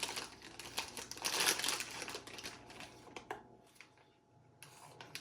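Wrapper of a packaged croissant crinkling in irregular bursts as it is opened by hand, dying away a little past halfway through.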